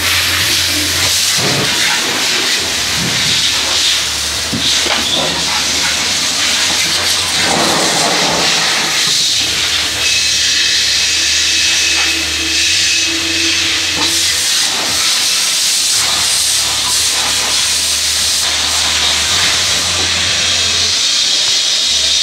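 A high-pressure washer jet spraying water onto and into a motorcycle fuel tank: a loud, steady hiss of spray with a low hum underneath. Its tone shifts a few times as the jet moves over the tank.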